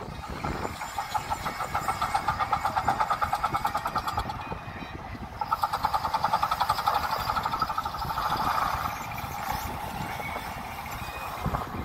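1905 White steam car's engine exhausting in rapid, even chuffs as the car pulls away with its boiler near 1,000 PSI. The beats fade briefly about four and a half seconds in, then pick up again.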